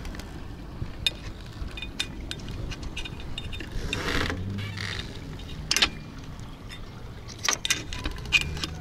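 Scattered metallic clicks and clinks of pliers and a metal rod working a C-clip (circlip) on a headsail roller-furler shaft, with a few sharper clicks in the second half.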